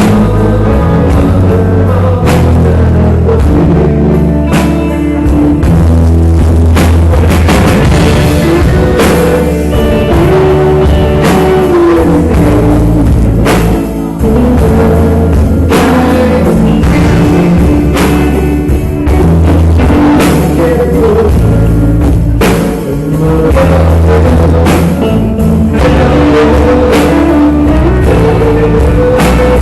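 Live rock band with electric guitar, bass and drum kit playing loud and steady through an instrumental stretch of a song, with no clear vocal line.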